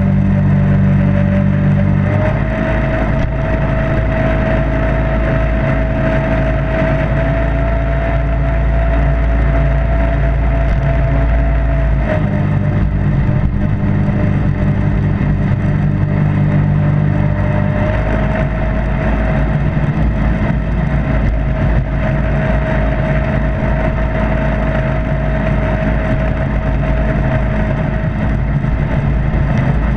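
Jet boat running under way at steady speed, its engine and water jet giving a constant drone over rushing water and spray. The engine note shifts slightly about two seconds in, again about twelve seconds in, and again about eighteen seconds in.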